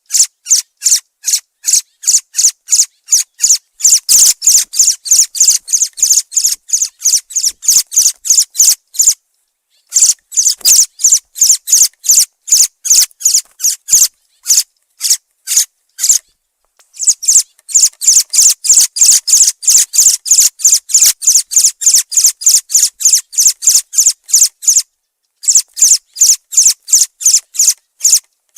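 Thrush (zorzal) calling: a fast, even series of short, high-pitched notes, about five a second, broken by brief pauses three times.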